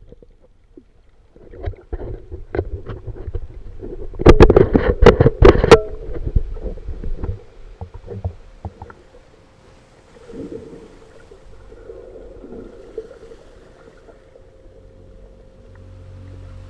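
Water splashing and bubbling close to the microphone. It starts as scattered knocks, grows loudest in a cluster of splashes about four to six seconds in, then settles to softer swells. A thin steady tone sounds underneath through the second half.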